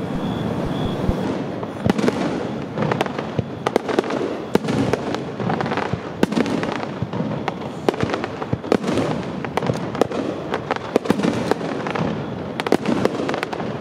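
Fireworks bursting overhead: a rapid, irregular run of sharp bangs and cracks that thickens into a dense barrage about two seconds in.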